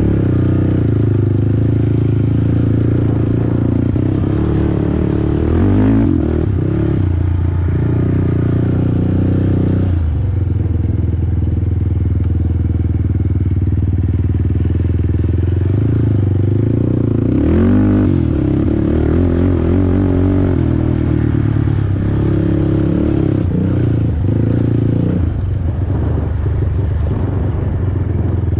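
Honda TRX450R quad's single-cylinder four-stroke engine running as it is ridden over a dirt track, mostly holding steady revs, with the throttle blipped and the revs rising and falling about 6 seconds in and again around 18 seconds.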